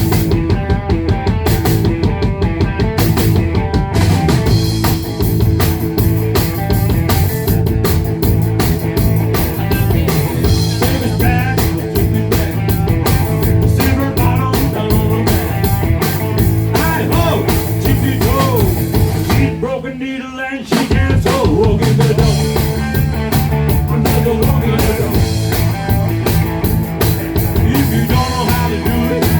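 A rock band playing with a busy drum kit and guitar at full volume. The band drops out for about a second roughly two-thirds of the way through, then comes back in.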